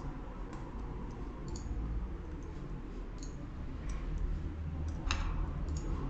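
Scattered clicks of a computer mouse and keyboard, irregular and light, one sharper click about five seconds in, over a low steady hum.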